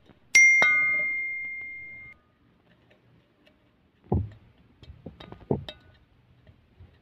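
A click and a bell-like notification ding that rings out and fades over nearly two seconds. Then two dull thuds, about four and five and a half seconds in, with a few light clinks: a muddler pressing lime and mint in the bottom of a glass jar.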